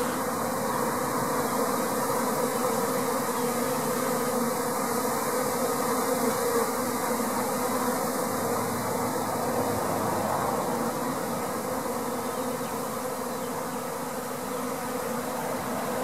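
A swarm of honey bees buzzing in a steady, dense hum as the swarm moves into an empty top-bar hive, easing slightly near the end.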